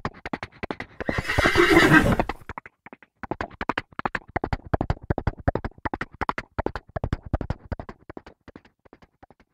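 A horse whinnies loudly for about a second over fast galloping hoofbeats. The hooves keep drumming afterwards and fade away toward the end.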